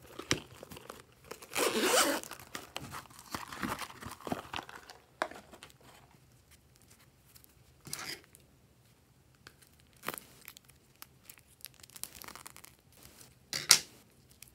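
Thin plastic crinkling and tearing in short, irregular bursts as slime-filled plastic packaging is handled and pulled open. The loudest bursts come about two seconds in and near the end.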